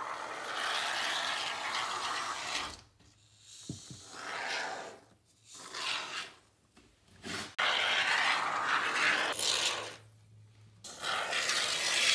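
Can of Great Stuff Gaps & Cracks expanding foam being dispensed through its straw nozzle: a hissing spray in about six bursts of varying length. The first burst lasts nearly three seconds, and a long one comes in the second half.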